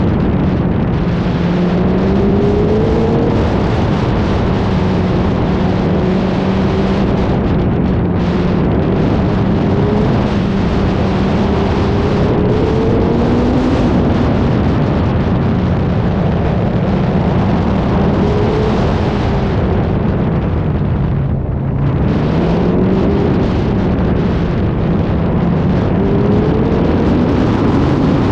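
Motor vehicle engine running under load, its pitch repeatedly climbing and dropping back as it revs through gears. It dips briefly about two-thirds of the way in, then climbs again, over a steady rush of wind and road noise.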